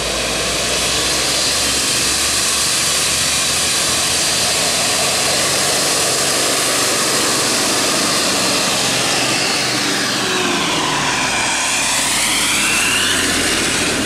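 Tour coach's diesel engine running loud under throttle as the bus drives past, a steady rushing sound much like a jet. About ten seconds in, the tone sweeps down and back up as the bus and following traffic pass close by.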